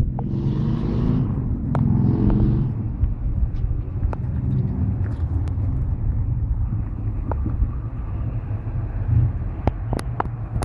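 Caterpillar 966H wheel loader's C11 diesel engine running, its pitch shifting over the first few seconds with a hiss on top, then settling to a steady run; a few sharp clicks near the end.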